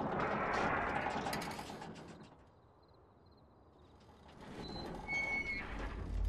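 Film sound effect of straining metal creaking and clicking, dying away to near silence about two and a half seconds in. A few faint high ringing tones follow, and a rush of noise swells up at the end.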